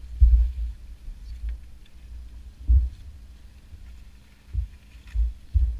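Low, dull thumps and knocks through the hull of a small boat being poled through dense water hyacinth, about five of them at uneven intervals.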